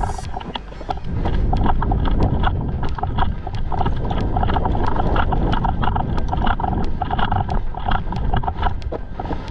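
Footsteps of a player moving quickly on tarmac, about two to three steps a second, with gear rattling at each step and low wind rumble on the microphone.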